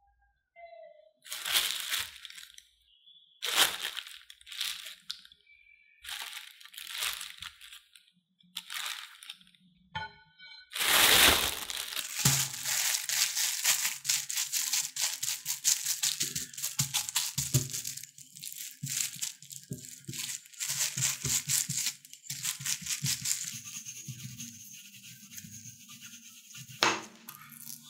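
Wooden spoon scraping and stirring thick potato dough in a glass bowl in separate strokes. About eleven seconds in, a loud rustle starts and turns into steady crinkling of a plastic bag as the dough is pressed flat inside it and rolled with a wooden rolling pin on a wooden board.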